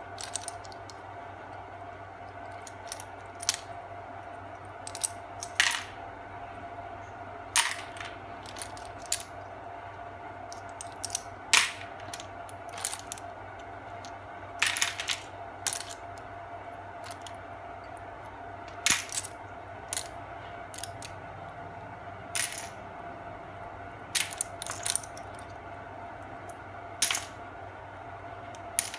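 Shells of boiled clams clinking and clattering as they are handled and the meat is picked out, in irregular sharp clicks about every second, some louder, over a faint steady hum.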